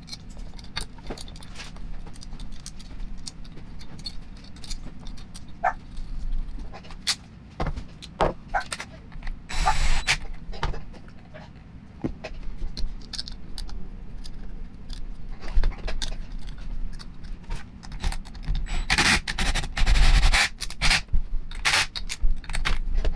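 Metal parts and hand tools clinking and scraping as the D-handle is fitted back onto an Ingersoll-Rand 2850MAX 1-inch air impact wrench. A cordless drill-driver runs in short bursts, loudest near the end, driving in the handle screws.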